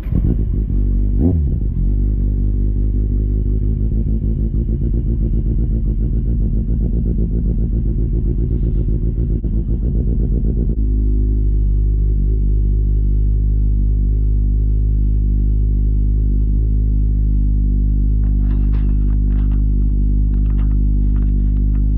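Loud, steady low wind rumble buffeting the microphone of a GoPro Hero 9 while riding. The rumble changes character about halfway through, and a few faint ticks come near the end.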